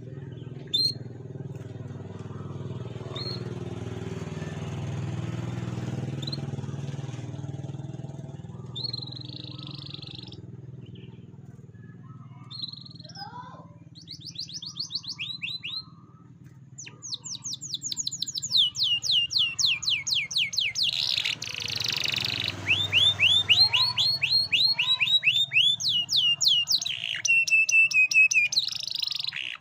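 Canary singing in rapid trills of quick repeated falling notes. The trills start about halfway through and grow louder and denser towards the end. In the first half a low rumble sits underneath.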